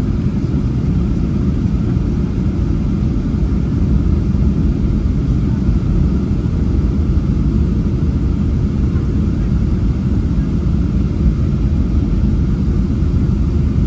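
Steady low rumble of a Boeing 737-800's CFM56 turbofan engines and rushing airflow heard inside the passenger cabin during the approach to landing.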